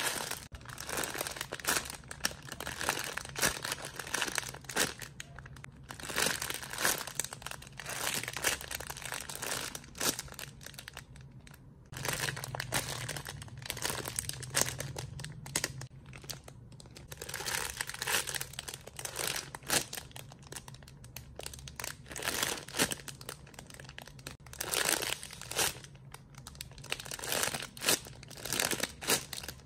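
Crinkling plastic, irregular bursts of rustling and crackling that come and go, as squishy toys in plastic packaging are handled and squeezed.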